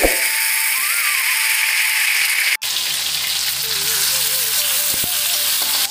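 Chopped tomatoes and green chillies sizzling loudly in hot mustard oil in a kadai, stirred with a spatula. The sizzle cuts out for an instant about halfway through, then carries on.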